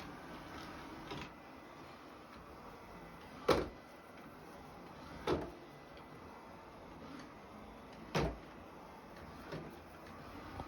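Robot vacuum cleaner running with a steady low hum, knocking three times a couple of seconds apart as it bumps into obstacles.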